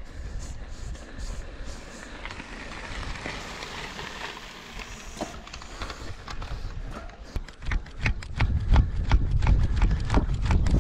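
Mountain bike rolling over rough ground with wind and rumble on the helmet or bike camera's microphone. In the last few seconds it turns into a loud, rapid rattle of knocks as the bike bounces over bumpy terrain.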